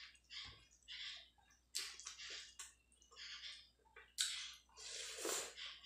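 Eating rice by hand: chewing in short repeated bursts, about two a second, loudest near the end.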